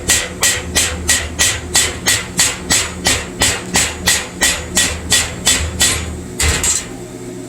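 Rapid metal-on-metal hammer strikes, about four a second, chipping slag off a fresh 7018 arc-weld bead. The strikes stop about six seconds in.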